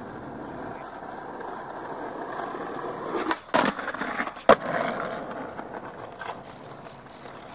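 Skateboard wheels rolling on asphalt, growing louder as the board comes closer. About three and a half seconds in the board clacks sharply, a second later it gives one loud smack, and then the rolling fades away.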